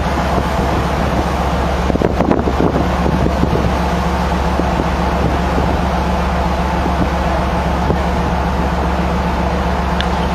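Wind rushing over the microphone on the deck of a ship underway, over the steady low hum of the ship's engines, with a few light handling knocks about two seconds in.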